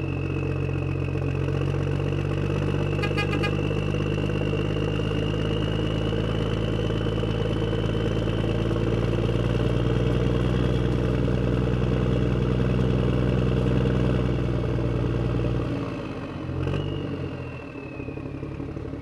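Tractor engine sound effect running steadily at idle, with a short horn toot about three seconds in; the engine sound cuts out near the end.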